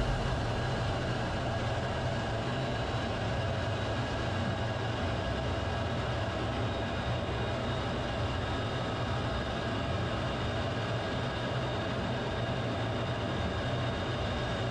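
Steady running noise of a vehicle travelling along a highway, heard from on board: a constant low hum with road noise that holds level throughout.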